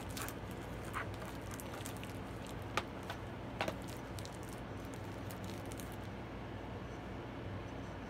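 A few short clicks and taps of plastic DVD cases being handled, over a steady low hum.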